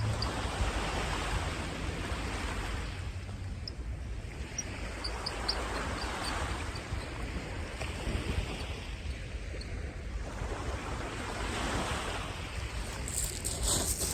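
Sea surf breaking on a sandy beach, the wash swelling and fading every few seconds.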